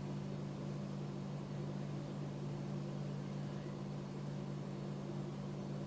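A steady low hum of a few constant tones over a faint even hiss, unchanging throughout.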